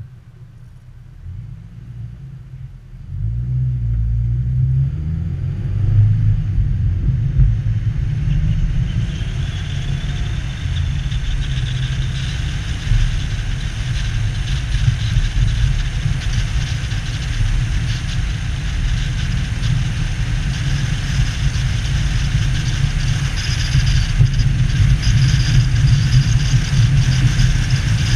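Car idling quietly at a stop, then pulling away about three seconds in: a loud low engine rumble starts suddenly, and tyre and wind noise builds from about nine seconds in as the car gathers speed.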